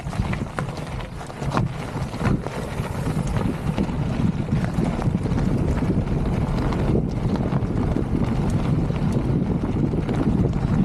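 Wind buffeting the camera microphone as a Polygon Siskiu mountain bike rolls over a sandy, stony desert trail, with the crunch of the tyres and scattered clicks and rattles from the bike. The rumble swells over the first few seconds as the bike picks up speed, then holds steady.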